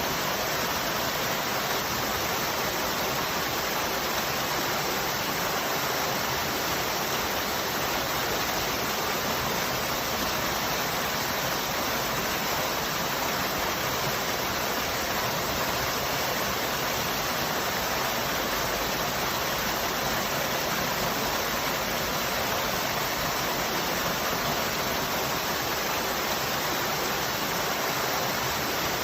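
Waterfall rushing steadily, an unbroken roar of falling water.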